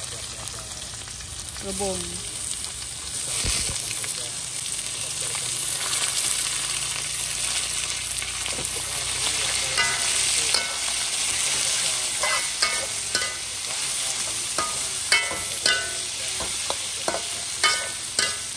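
Sliced bamboo shoots sizzling in hot oil in a steel wok as they go in and are stir-fried with a metal spatula. From about halfway, the spatula scrapes and clinks against the wok again and again over the steady sizzle.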